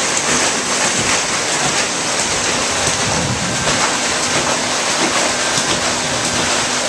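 Water rushing and churning through an Archimedean screw hydro turbine: a loud, steady noise of moving water, with a faint steady hum underneath.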